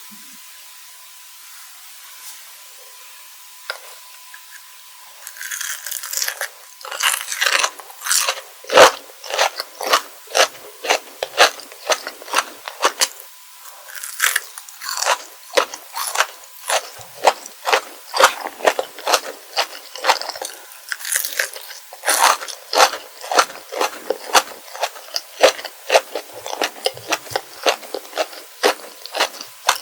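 Close-miked crunching and chewing of kohakutou, the crisp-crusted agar-and-sugar crystal candy. After a few quiet seconds with a single click, a rapid run of crisp bites and chews starts about five seconds in and keeps going.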